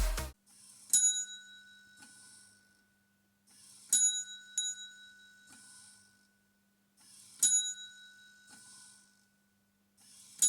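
A small bell dings three times, about three seconds apart, each strike ringing out on a clear high tone for a second or so. A faint steady hum runs underneath.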